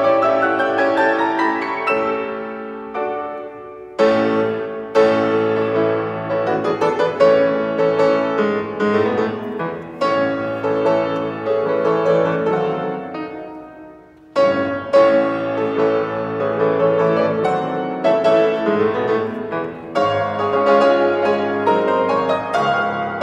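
Solo grand piano being played, a piece in phrases that fade and then restart, with the clearest break about fourteen seconds in.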